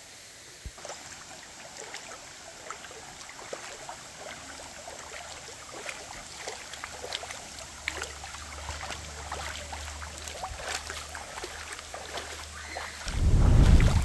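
Shallow stream trickling and splashing over a stony bed, many small irregular splashes over a steady rush. A low rumble rises about halfway through, and a louder low rumble comes near the end.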